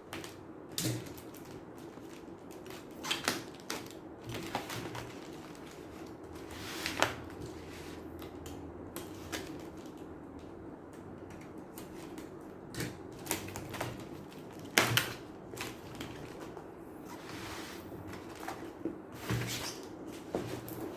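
Irregular clicks, taps and knocks from a keyboard and its packaging being handled during unboxing, a few seconds apart, over a faint steady hum.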